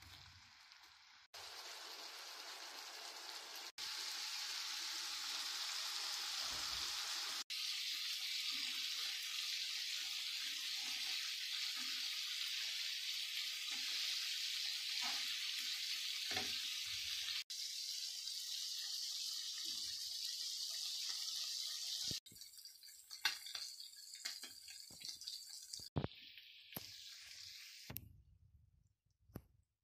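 Shredded boiled chicken sizzling as it fries in oil and spice sauce in a non-stick frying pan: a steady high hiss that stops and restarts abruptly a few times. Near the end it gives way to scattered sharp clicks and knocks.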